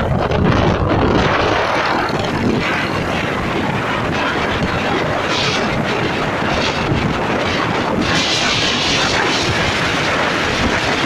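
Small motorcycle engine running at road speed, nearly buried under heavy wind rush on the microphone, which grows brighter and louder near the end.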